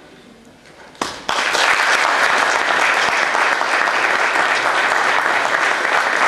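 Audience applause that breaks out suddenly about a second in, after a brief hush as the choir's last note dies away, then carries on steadily.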